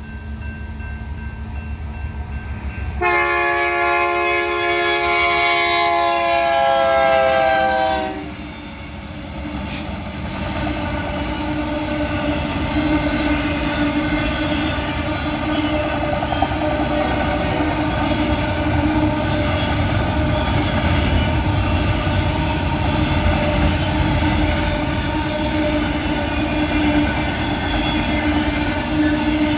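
BNSF freight locomotive's multi-chime air horn sounding one long blast about three seconds in, its pitch dropping just before it cuts off as the locomotive passes. A fast autorack freight train then rolls by with steady rail and wheel noise.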